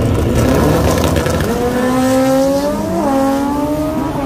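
Drag racing car accelerating hard down the strip, its engine note climbing steadily, then dipping and recovering at a gear shift about three seconds in. Before that there is a heavy low rumble.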